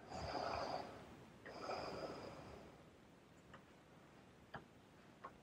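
A person breathing: two soft breaths, one at the start and one about a second and a half in, followed by a few faint clicks.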